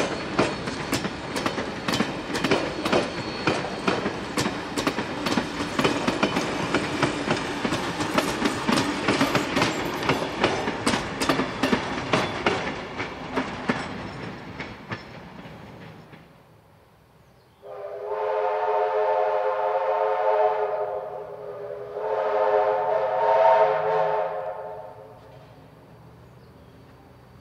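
Heritage train's carriage wheels clicking over the rail joints as it rolls past, the sound fading away about halfway through. After a short lull come two long whistle blasts, each a few seconds, from steam locomotive 3265 as it approaches.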